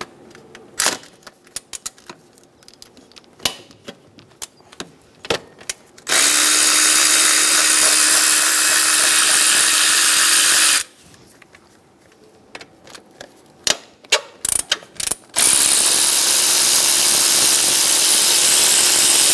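A power ratchet with a 14 mm socket runs twice, each time for about four to five seconds, spinning out the wishbone bolts. Between the runs come scattered sharp metal clicks of the tool and socket.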